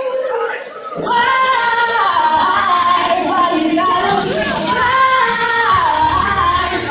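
A girl's solo singing voice through a microphone and PA speaker, holding a sung melody. The line breaks off for about half a second just after the start, then resumes about a second in.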